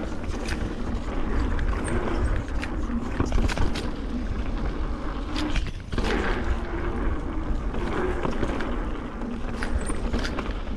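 Mountain bike ridden along a dirt trail: tyres rolling over the ground under a steady low rumble of rushing air on the microphone, with frequent sharp clicks and rattles from the bike over bumps.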